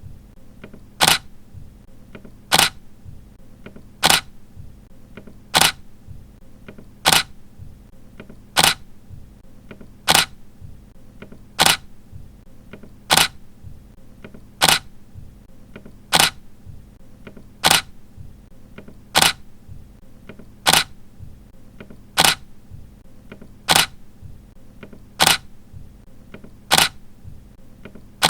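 Camera shutter clicking once about every second and a half, each a short sharp snap, repeated evenly over a faint steady background hiss.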